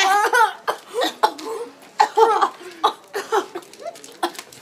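Boys laughing and making short wordless sounds of disgust in reaction to a foul-tasting gum flavour.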